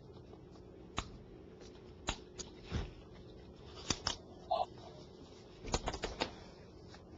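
Scattered light clicks, taps and crinkles of hands and tools handling a phone's adhesive frame gasket while its plastic backing layer is peeled off.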